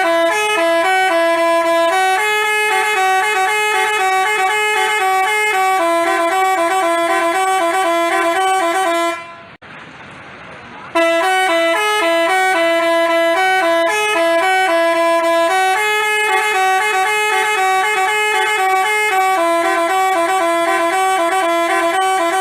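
Basuri telolet horn, the multi-tone melody horn fitted to Indonesian buses, playing a tune of quick stepped notes. It breaks off about nine seconds in for under two seconds, then plays the tune again.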